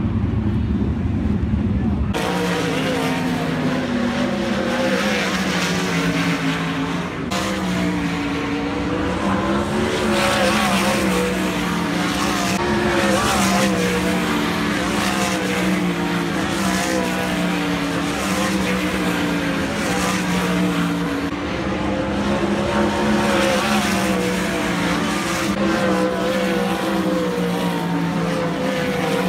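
Several winged sprint cars' V8 engines running together on a dirt oval, their pitch rising and falling as the cars circle the track.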